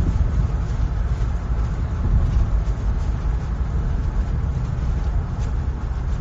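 Steady low rumble of a car driving along a road: tyre and engine noise with no sudden events.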